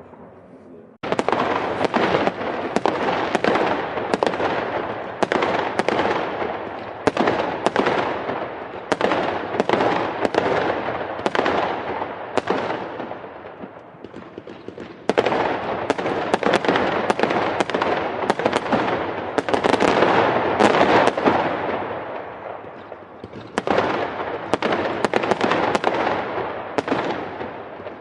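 Fireworks going off as rapid crackling bangs in dense volleys. The volleys start suddenly about a second in, die down, then start up sharply again twice.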